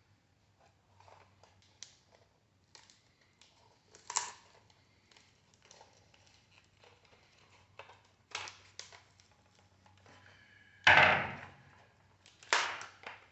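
Hands dismantling a microwave oven: scattered clicks, knocks and crinkling as parts are handled and pulled free, with a loud clatter about eleven seconds in and more knocks near the end.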